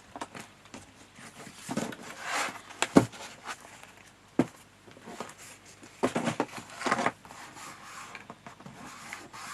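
Cardstock being handled and pressed on a table: irregular rustling and scraping, with two sharp taps about three and four and a half seconds in.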